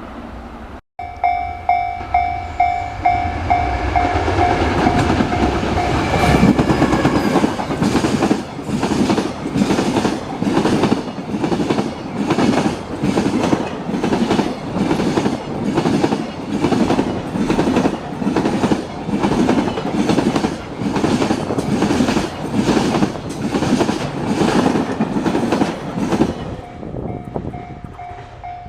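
Level-crossing warning bell ringing with a steady repeating tone, then a long train running over the crossing with a regular clickety-clack of wheels over the rail joints, about one beat a second, for some twenty seconds. The crossing bell is heard again as the train clears near the end.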